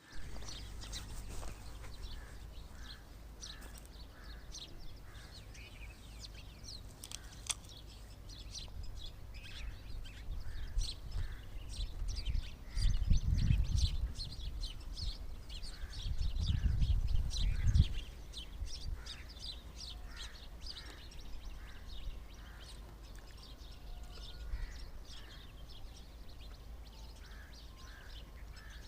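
Many small birds chirping busily in quick, high notes, with a lower call repeated about twice a second through much of the clip. A low rumble swells up twice near the middle, the loudest sound in the clip.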